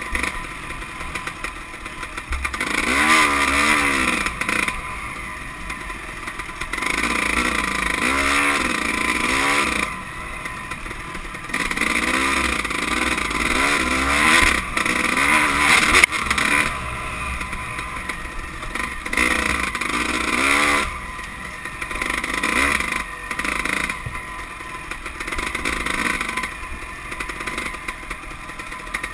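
Dirt bike engine revving up and down in repeated bursts every few seconds, its pitch rising and falling as the throttle is opened and shut.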